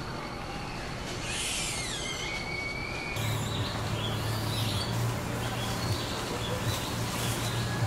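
Outdoor ambience with birds calling: a run of quick falling whistled notes about a second in, followed by a held high note. A few seconds in the background changes abruptly to a steady low hum under scattered short chirps.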